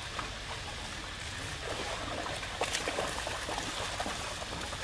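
Steady outdoor background noise with a low rumble, broken by a few faint clicks and short chirps around the middle.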